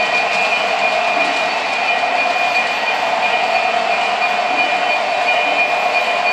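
O gauge three-rail model trains running: the steady hum and rolling rattle of diesel locomotives' motors and wheels on the track, with a steady high whine.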